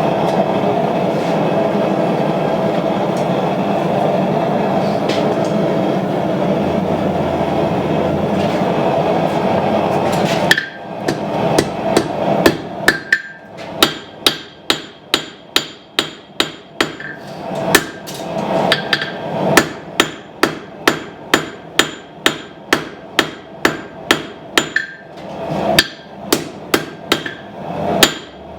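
A forge runs with a loud, steady noise for about ten seconds. Then comes hand hammering of a hot knife blade on the anvil: ringing steel-on-steel blows, about two a second, with a few short pauses, as the puukko blade is forged to shape.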